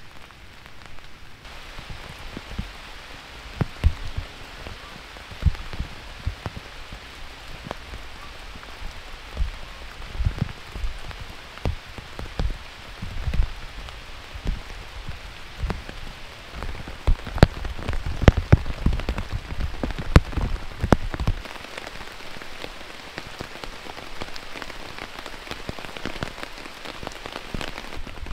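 Rain falling on a tarp shelter overhead, heard from underneath: a steady hiss with many separate drops striking the tarp at irregular intervals. The strikes come thickest a little past halfway.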